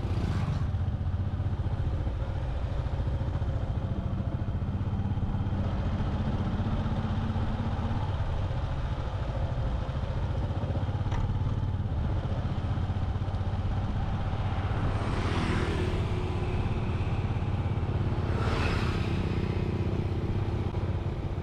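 Steady running of a motorbike on the move, with engine hum and road and wind noise. Two louder passing whooshes come about fifteen and nineteen seconds in.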